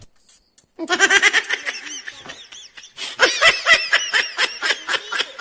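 Children laughing in rapid, high-pitched bursts of giggles, starting about a second in, pausing briefly, and picking up again about three seconds in.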